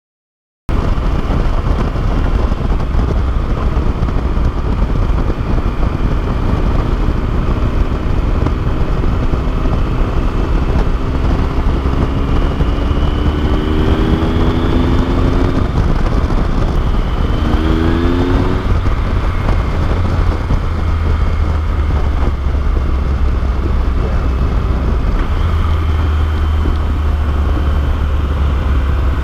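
Motorcycle being ridden at speed, heard from on the bike: a heavy low rumble of wind noise over the engine. The engine note rises steadily in pitch as the bike accelerates about a third of the way in, drops, then climbs again briefly a couple of seconds later. The sound cuts in abruptly less than a second in.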